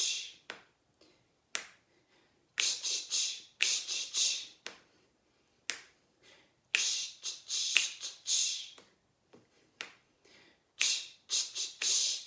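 A man making short, hissing, unvoiced mouth sounds in quick rhythmic groups of four or five, with pauses of about a second between groups, as a call-and-repeat vocal warm-up.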